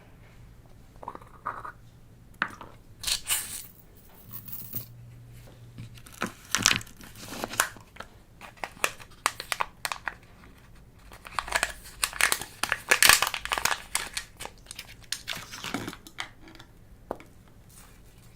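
Slime being worked by hand, kneaded and stretched, crackling and popping in irregular bursts.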